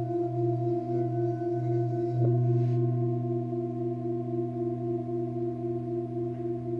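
Antique Tibetan singing bowls ringing, a low hum under several higher tones, one of which wavers in a steady pulse. A bowl is struck once a little over two seconds in, adding a fresh ring over the sustained tones.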